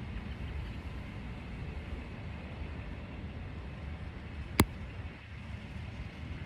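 Steady low rumbling background noise, with one sharp click about four and a half seconds in.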